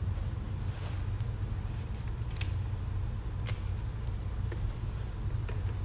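A few faint sharp snaps and light rustling as jute mallow (saluyot) leaves are plucked from their stems and dropped into a plastic colander, over a steady low rumble.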